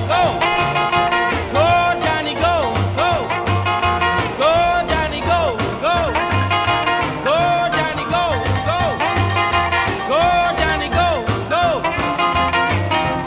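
Music played back from a tape on a Technics RS-M205 cassette deck, taken directly from the deck's line output. It has a steady beat, a bass line and a melody that swoops up and down in pitch.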